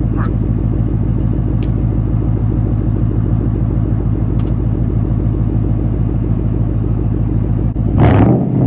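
Mercury Grand Marquis V8 with a straight-piped dual exhaust, heard at the tailpipes, idling steadily; near the end the throttle is blipped and it revs up sharply.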